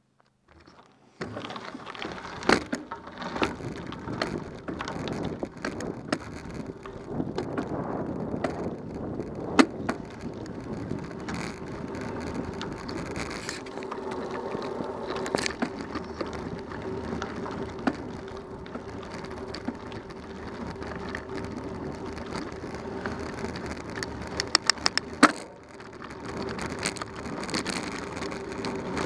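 A bicycle rolling over a dirt and gravel road: tyres crunching and the bike rattling, with sharp knocks as it jolts over bumps. The sound starts about a second in. A steady hum joins around the middle.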